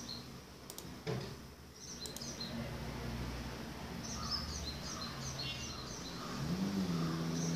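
Birds chirping in the background, with two faint clicks in the first two seconds. From about six and a half seconds in, a low tone glides up in pitch and then holds steady.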